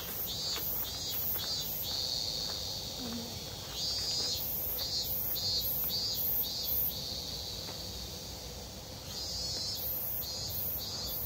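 Cicadas singing in the trees, a high, pulsing insect chorus at about two to three pulses a second, with steadier stretches between the pulsed phrases.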